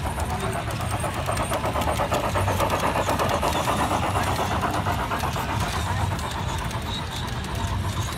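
Garden-railway model steam locomotive and its train running past, giving a rapid, even, rhythmic clatter that grows louder about two seconds in and fades after about five seconds.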